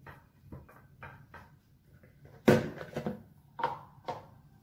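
A series of irregular knocks and clinks from chicken thighs being handled and pressed into a glass baking dish. The loudest knock comes about two and a half seconds in, and a few of the clinks ring briefly.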